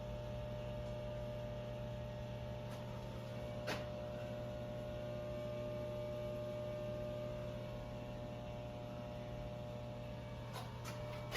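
Steady electrical hum, with a faint click about four seconds in and a couple more near the end.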